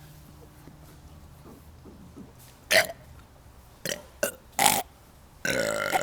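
Deliberate burping: a few short, sharp burps about a second apart, then a long drawn-out burp starting near the end.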